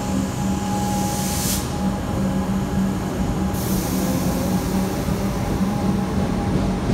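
Comeng electric suburban train moving out along the platform, with a steady low motor hum and bursts of high hiss about a second in and again around three and a half seconds in.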